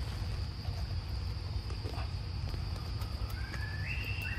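Steady, high-pitched drone of forest insects over a constant low rumble. Near the end comes a brief, thin, high call that rises in steps.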